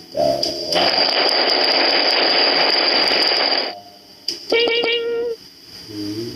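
Preset sound effects played from a V8 live sound card's effect buttons: a short pitched sound, then about three seconds of dense noise, then a brief held pitched tone about a second long, with a fainter pitched bit near the end.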